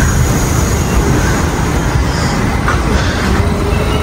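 R68 subway train on the B line pulling into the station, its wheels and undercarriage running loudly and steadily on the rails as the cars pass close by.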